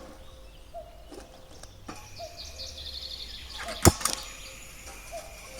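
Kettle being set on to boil on a gas stove: a run of quick light ticks, two sharp clicks about four seconds in, then a steady hiss.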